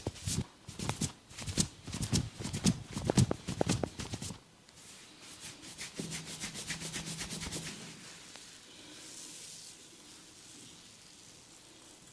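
A barber's hands beating rhythmically on a client's head in a head massage, several quick slaps a second, for about four seconds. Then they switch to softer rubbing of hands over hair and skin.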